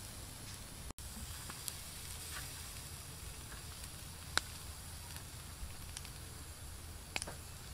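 Chicken wings sizzling on a grill, a steady hiss with a few sharp clicks, the loudest about halfway through. The sound breaks off for an instant about a second in.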